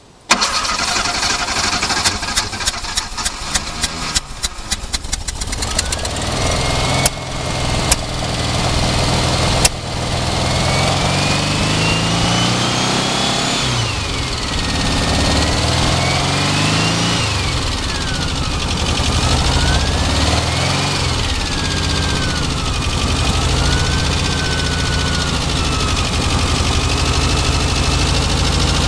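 An engine starting from cold: a rapid ticking as it catches and a few sharp cracks, then it runs with its speed rising and falling, a whine going up and down with the revs.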